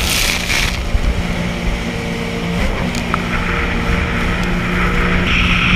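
Sea-Doo personal watercraft engine running steadily under way, with the rush of water and wind over it; the engine note shifts briefly about two and a half seconds in.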